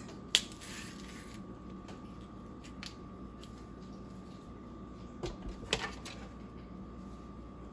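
A few light clicks and taps as bananas are handled and dropped into a blender jar, the sharpest about a third of a second in, over a faint steady tone.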